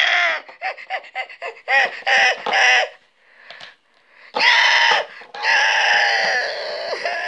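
A person vocalising animal cries for toy figures being played with: a quick string of high-pitched squeals and shrieks, then two longer drawn-out screeching calls after a short pause about four seconds in.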